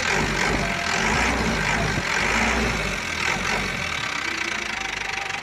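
Isuzu Elf NHR truck's diesel engine idling steadily, heard close up in the open engine bay.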